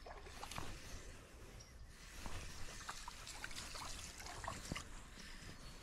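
Faint trickling and splashing water as a hooked white bass is reeled in close to the bank, with scattered light clicks and ticks.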